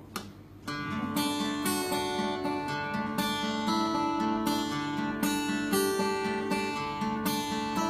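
Acoustic guitar being strummed, starting about a second in after a short pause: the instrumental opening of a song before the singing begins.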